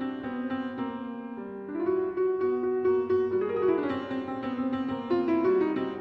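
Piano music: a line of quick notes stepping up and down over held lower notes.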